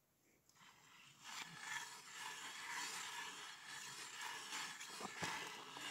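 Hand ice auger boring into lake ice: its blades scrape steadily through the ice as it is cranked, starting about a second in.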